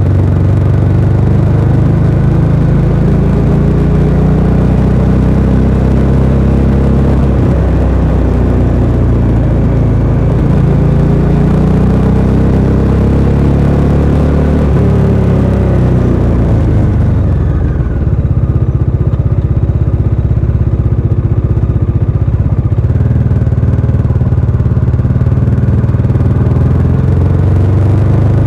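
Bajaj Dominar 400 UG's single-cylinder engine through its stock exhaust, running under way. Its pitch rises and eases several times with the throttle. A little past halfway the high hiss drops away and the engine settles to a steadier, lower note.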